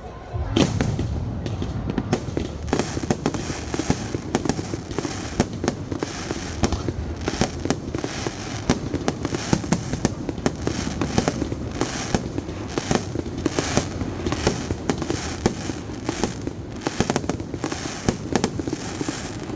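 Fireworks display going off: a dense run of sharp bangs and crackling pops, several a second, over a steady low rumble, starting suddenly about half a second in.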